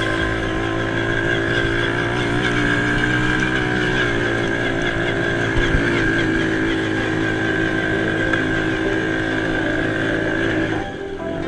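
ATV engines running, their pitch wavering as they rev. The sound drops off suddenly near the end.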